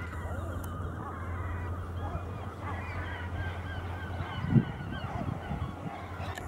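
Many birds calling over one another in short, overlapping honking calls, over a steady low hum, with a single thump about two-thirds of the way through.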